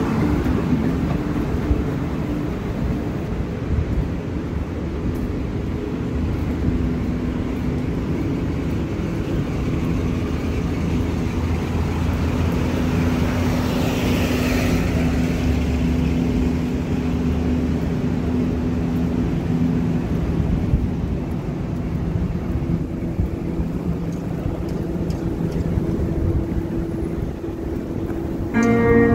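Downtown street traffic: vehicles running and passing, with one passing close about halfway through.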